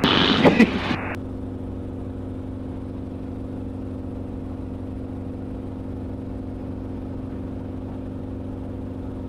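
Enstrom piston helicopter in cruise flight: steady engine and rotor drone heard inside the cabin, an even low hum with several held tones.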